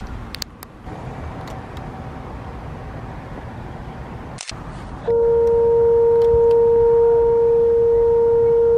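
Outdoor background noise, then about five seconds in a loud horn blast on one low, steady note that is held to the end.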